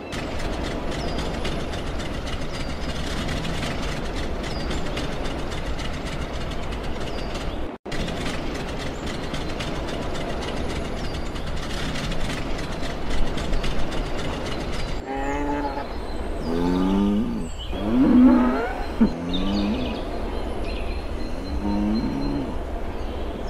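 Farm machinery runs with a steady, dense clatter that drops out for an instant about a third of the way in. In the last third a run of short livestock calls, rising and falling, sounds over the machine noise.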